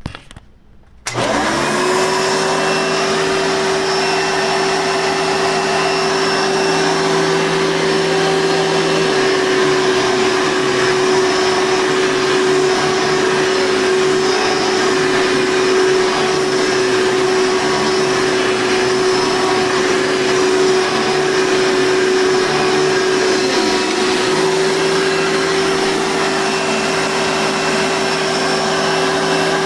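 Blue Hoover softback upright vacuum cleaner switched on about a second in, its motor spinning up quickly and then running steadily with a constant hum and rush of air.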